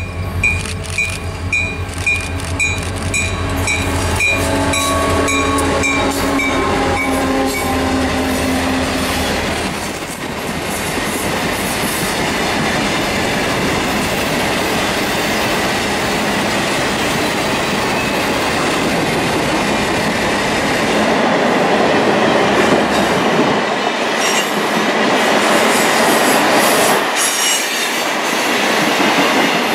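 Northshore Mining diesel locomotive passing close by with its engine droning, followed by a long string of ore hopper cars rolling past with steady wheel rumble and clatter on the rails.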